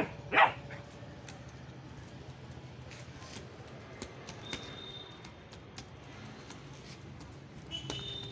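A dog barks twice in quick succession at the very start. Then a low steady hum with a few faint ticks, and a thin high tone near the end.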